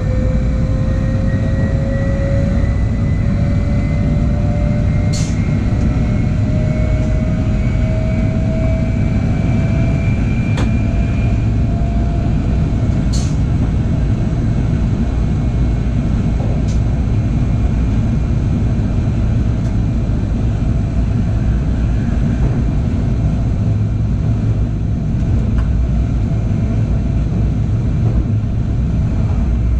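Regional passenger train running along the line, heard from the driver's cab: a steady loud rumble with a whine that climbs slowly in pitch over the first dozen seconds as the train gathers speed, then fades into the running noise. A few short sharp clicks come through, the clearest about five and thirteen seconds in.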